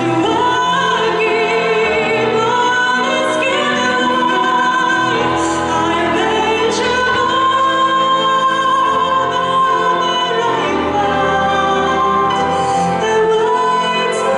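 A female vocalist singing a ballad through a microphone over instrumental accompaniment, holding long notes with a wide vibrato, one sustained note about halfway through.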